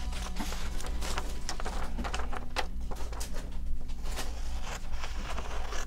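Scissors snipping paper: a series of short, irregular cuts, several a second, as the edges of a sheet are trimmed off.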